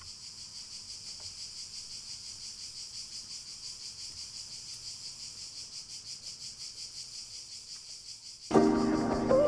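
Steady, high-pitched insect chirring with a fast, even pulse. Music comes in loudly about eight and a half seconds in.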